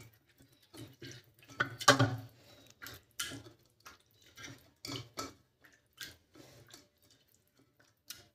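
Soft, cooked bottle gourd being mashed with a perforated potato masher in an aluminium pressure cooker. The masher makes irregular wet squelching strokes, some with a knock on the pot's base, and the loudest comes about two seconds in.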